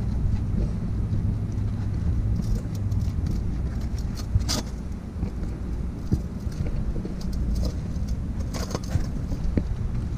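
Steady low rumble of wind on the camera microphone, with scuffs and scrapes of sneakers and hands on a utility pole and concrete-block wall during climbing: a few a few seconds in, a sharp one about halfway, and a cluster near the end.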